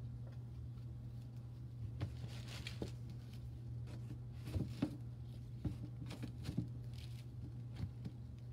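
Paperback books being handled: rustles and a series of soft knocks as one book is put down and the next picked up, over a steady low hum.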